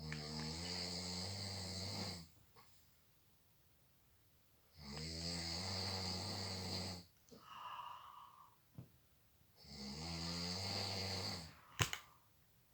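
A drunk man snoring in his sleep: three long, low snores about five seconds apart, each lasting about two seconds, with a softer breath between the second and third and a sharp click near the end.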